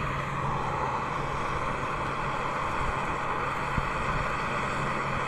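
Portable camp stove burner running steadily under a pot of water being brought to the boil: an even hiss with a constant low hum.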